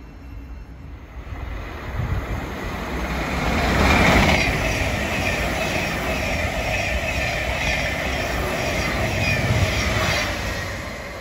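A Thameslink Class 700 electric multiple unit running past close by. The rumble and rail noise build to a peak about four seconds in, then hold steady with a regular clickety-clack of wheels over the rail joints and a faint steady whine, fading near the end.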